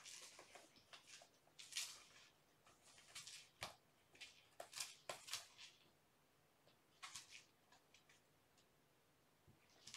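Faint scratching and scrabbling of a cat's claws on a corrugated cardboard scratcher, in short bursts over the first five seconds or so and again about seven seconds in.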